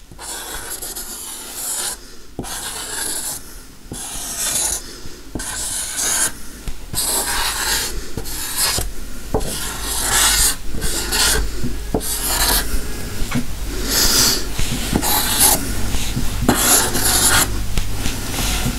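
Permanent marker scratching over an acrylic-painted tray in short strokes, an uneven run of dry rasps about once a second that grow louder in the second half.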